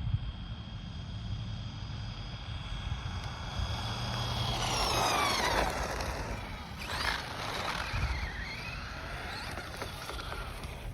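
Vintage Losi LXT RC truck's brushed electric motor (a Trinity 27-turn) whining on a full-speed run. The whine is loudest about five seconds in and drops in pitch as the truck passes, then rises and falls again as it is driven on, over a low rumble of wind on the microphone.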